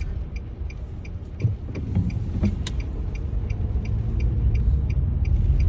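Car interior rumble of the engine and tyres while driving, with a turn-signal indicator ticking steadily about three times a second and one sharper click about halfway through.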